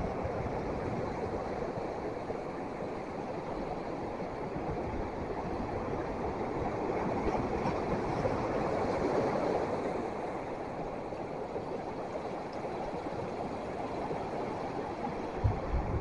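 Steady rush of sea surf, swelling about halfway through, with a brief low thump near the end.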